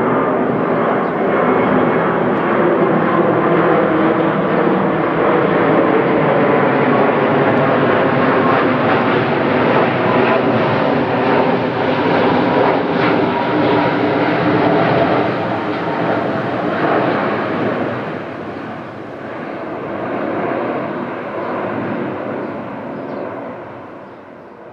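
Airbus A330-300 with Rolls-Royce Trent 700 engines passing low overhead on final approach, gear down: loud jet noise with steady tones in it, fading gradually over the last several seconds as it flies away.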